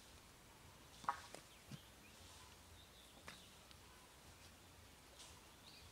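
Near silence: faint rural outdoor ambience, with one brief bird chirp about a second in and a faint click a couple of seconds later.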